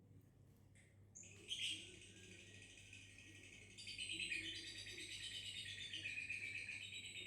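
Lovebird chattering in a rapid, high-pitched continuous trill (the 'ngekek' call), starting about a second in and growing louder and denser about four seconds in.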